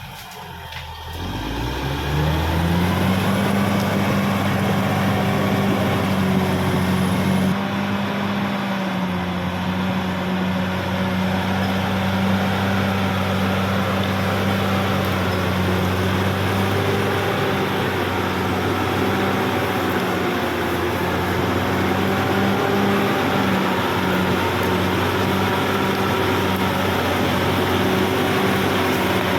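Caterpillar D6R XL bulldozer's diesel engine: it rises in pitch over the first two seconds, then runs at a steady, high speed.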